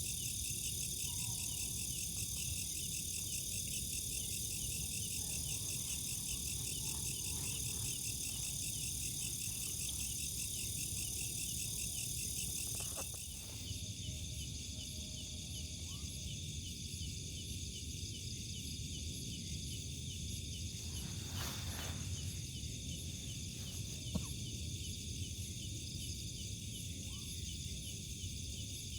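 A night chorus of crickets and other insects: steady high-pitched trilling and chirping in several layers. The highest layer drops back about halfway through, and there is one brief rustle-like noise later on.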